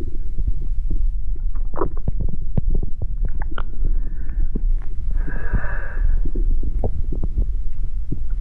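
Amplified internal body sounds: a dense low rumble full of irregular clicks, crackles and thuds. A short hoarse, rasping call sounds about four seconds in, and a longer one between five and six seconds.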